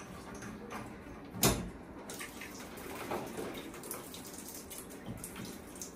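Pipe fittings under a drained combi boiler being undone with a spanner: small metallic clicks and scrapes, with one sharp knock about one and a half seconds in, and leftover system water trickling and dripping from the opened joints.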